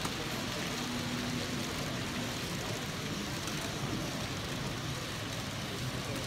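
Steady background noise of a busy exhibition hall: an even wash of distant crowd chatter and hall noise, with no single sound standing out.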